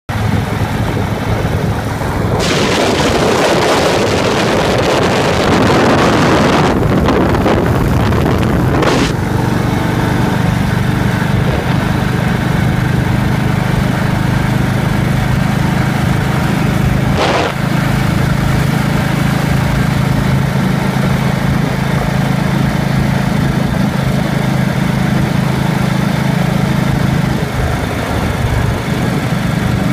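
Motorcycle engine running at a steady pitch while riding, with a few seconds of wind rushing over the microphone about two seconds in. The engine note eases back near the end.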